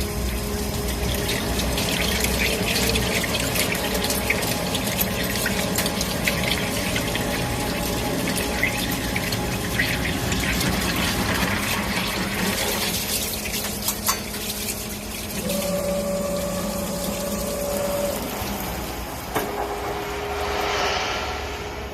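Takeda ABP-511SM automatic drilling machine running on a test run: a steady hum with a hissing, crackling wash over it for much of the time. Later come a few sharp clicks, then a higher steady tone for a couple of seconds and another near the end.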